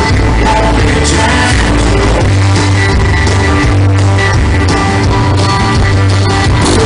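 Live country band playing an upbeat song, with a driving bass line and steady drums.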